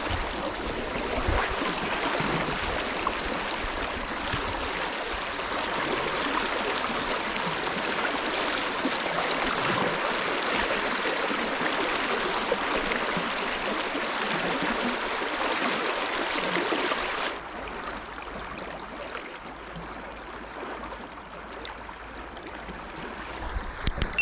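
River water flowing, a steady rush. About two-thirds of the way through it suddenly becomes quieter and carries on at a lower level.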